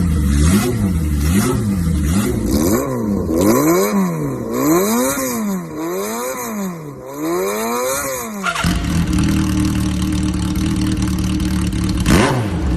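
Motorcycle engine exhausting through a handmade aftermarket silencer, its throttle blipped in a rhythmic call: each rev rises and falls in pitch, quick and short at first, then about one long swell a second. About two-thirds of the way in it switches abruptly to a steady idle.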